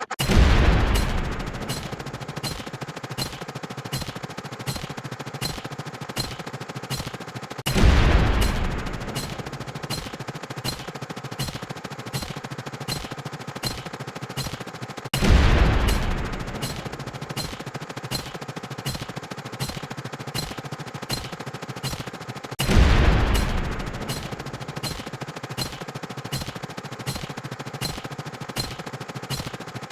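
Stock explosion sound effect fired over and over in quick succession, several sharp hits a second in a steady rapid-fire rhythm. A heavier boom rolls out and fades about every seven and a half seconds.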